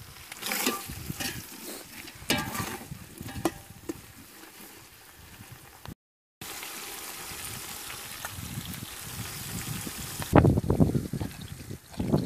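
A utensil stirring and scraping in a pan of sizzling food, with clicks and knocks. After a break comes a steady sizzling hiss, then loud rough rumbling noise for the last two seconds.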